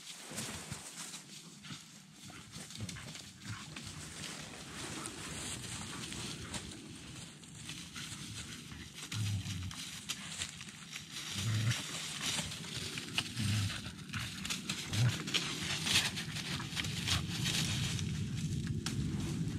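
Dry leaf litter and pine needles crackling and rustling under a dog's paws as it moves about the forest floor, with a few dull thuds in the second half.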